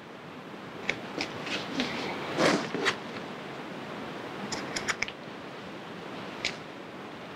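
Fabric scissors snipping through layers of fabric and cotton wadding: a series of separate short snips, with a quick run of them about five seconds in.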